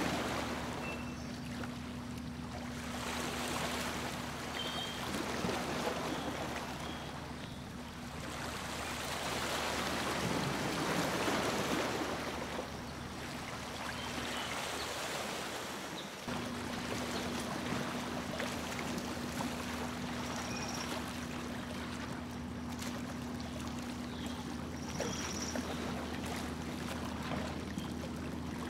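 A tour boat's motor humming steadily as the hull moves through the water, with water rushing and splashing alongside. The hum cuts out briefly about halfway through and then resumes. A few faint, short, high chirps sound over it.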